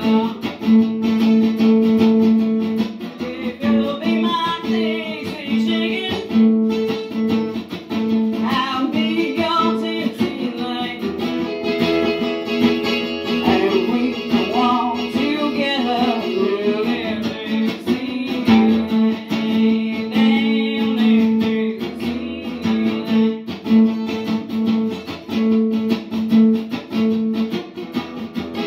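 Acoustic guitar strummed steadily, with a solo voice singing over it at intervals.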